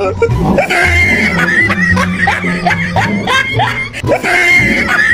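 Background music with a steady bass pulse and short rising notes repeating about three times a second.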